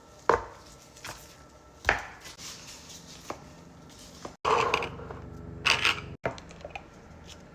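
Kitchen food-preparation knocks and clatter: a few sharp, separate knocks in the first three and a half seconds, then, after an abrupt break, a busier stretch of clatter with one loud knock, cut off abruptly again.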